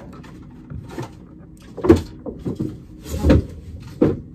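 A few sharp knocks and clicks, the loudest about two seconds in, with two more after three seconds and near four.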